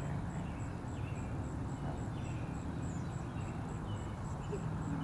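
Early-morning ambience: scattered short bird chirps and a high insect trill pulsing about three times a second, over a steady low rumble.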